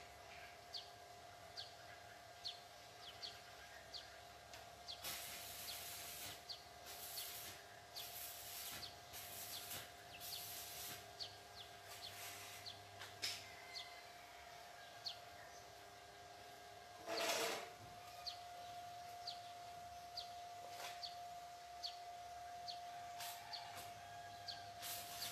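Quiet outdoor background: a bird gives a short high chirp over and over, a little more than once a second, over a faint steady hum. A run of short hissing bursts comes about a third of the way in, and one louder burst just past the middle.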